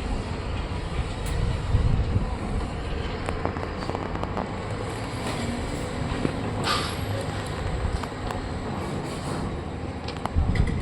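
Steady low machine rumble with scattered sharp clicks and a brief rattle about two-thirds of the way through.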